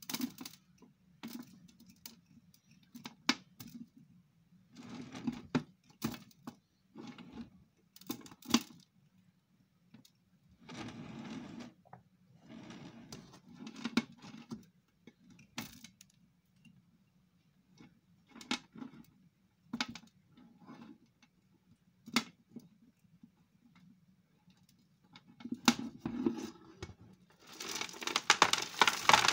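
Small hand rake scraping old peat-based potting soil out of a ficus ginseng's root ball, in short scratchy spells with sharp clicks as crumbs of soil drop onto a plastic tray. Near the end comes a longer, louder rush as the loose soil is tipped off the tray into a plastic tub.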